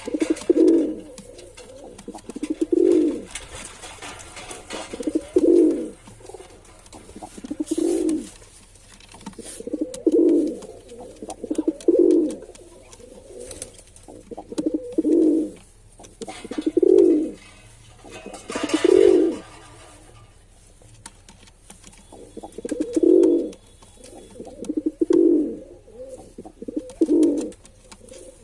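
Male pigeon cooing: a low call repeated roughly every two seconds, each about a second long.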